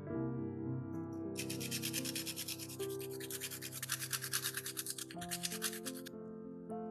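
A garlic clove rubbed quickly back and forth on a small handheld metal grater, a rapid, even rasping that starts about a second and a half in and stops about a second before the end.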